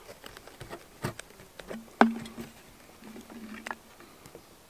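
Hands handling a leather water flask: a run of small clicks and taps, with one sharper knock about two seconds in, each followed by a brief low hum.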